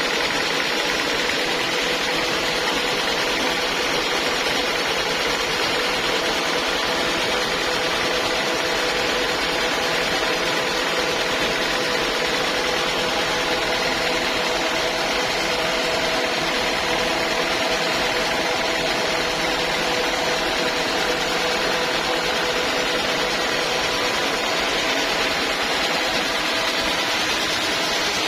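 Sawmill saw machinery running steadily: a constant mechanical drone with a few held tones and no breaks.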